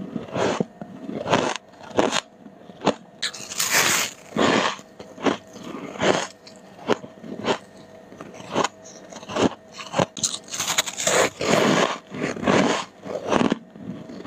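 Freezer frost crunching as it is bitten and chewed close to the microphone, a crisp crunch about one and a half times a second, with a few longer, hissier crunches as bigger mouthfuls break down.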